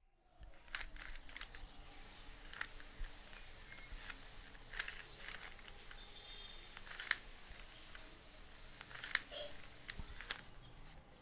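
Scattered light clicks and taps of small objects being handled, over faint room tone.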